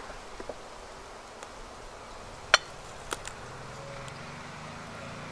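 Honeybees buzzing steadily over an open hive, broken by sharp clicks and cracks of a metal hive tool prying at the wooden frames, the loudest crack about two and a half seconds in.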